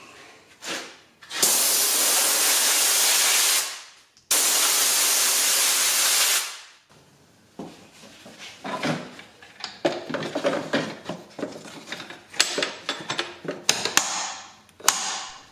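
Compressed air from a blow gun hissing through a pleated panel engine air filter in two long blasts of about two seconds each, blowing the dust out of it. Then come light plastic clicks and knocks as the air filter housing is handled and closed up.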